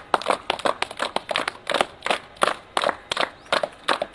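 A small group of people clapping their hands, the claps uneven and not in time with each other.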